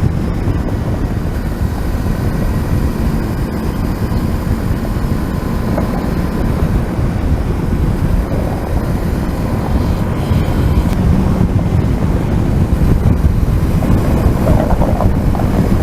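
Steady wind rush over the microphone with a Kawasaki Versys 300's parallel-twin engine running underneath at a constant cruising speed.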